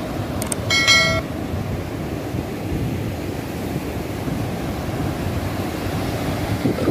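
Surf breaking and washing up a sandy beach, a steady rushing noise. About a second in, a click and then a short pitched ding from an added subscribe-button sound effect.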